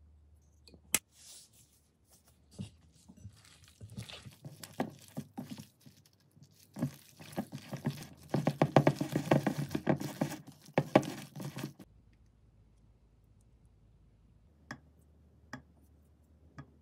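A gloved hand kneading and squishing wet dumpling filling in a glass bowl, a dense run of squelching patter that builds up and is loudest near the middle, then stops. A few soft clicks follow near the end.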